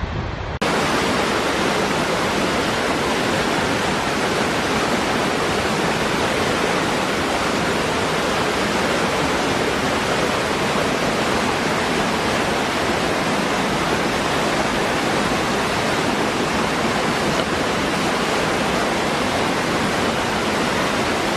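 Waterfall: water falling in a steady, dense rush with no let-up. It begins with a sudden cut about half a second in, replacing a duller, windier sound.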